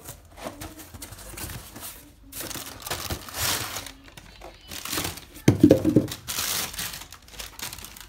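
Plastic wrapping crinkling and rustling as a replacement drain valve for a washing machine is pulled out of its cardboard box, with the box being handled. There are irregular bursts, the loudest a little past halfway.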